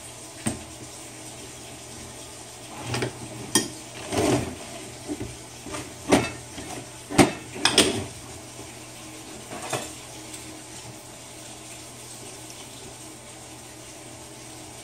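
Aluminium lure-mold blocks clanking and knocking together as they are handled and clamped shut, about ten sharp metal knocks in the first ten seconds.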